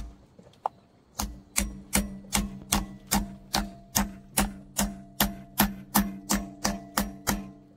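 Hammer driving a nail through a post cap into a wooden 4x4 post: one light setting tap, then a steady run of about seventeen blows, roughly two and a half a second, the post ringing briefly under each blow.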